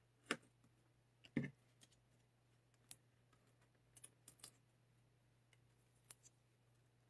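Faint, scattered clicks and taps of cardstock pieces being handled and pressed down on a card, a few sharp ticks with a cluster of them about two-thirds through, over a low steady hum.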